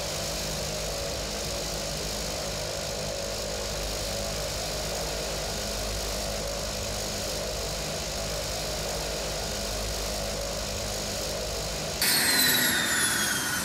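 Cessna 208B Caravan's Pratt & Whitney PT6A turboprop running steadily at low power, heard from the cockpit. About twelve seconds in, the engine is shut down with the condition lever, the low hum drops away, and its turbine whines fall in pitch as it spools down.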